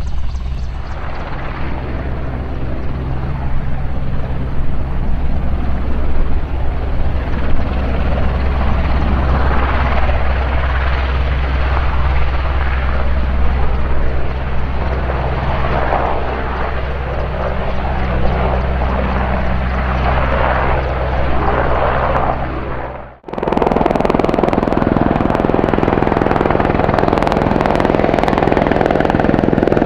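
AgustaWestland AW101 Merlin helicopter's three turbine engines and rotors running loud and steady as it hovers low. After a sudden break about three-quarters of the way through, an Apache attack helicopter hovering, its rotor and engines a steady, evenly beating sound.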